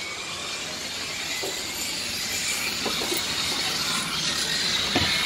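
Radio-controlled model race trucks running on an asphalt track: a steady high-pitched whine and hiss from their motors and tyres, getting louder toward the end, with a few faint knocks.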